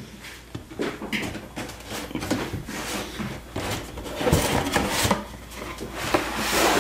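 A cardboard box lid scraping and rubbing as it is worked off the box, louder about two-thirds of the way in. Near the end come light taps and crinkles as the clear plastic tray inside is handled.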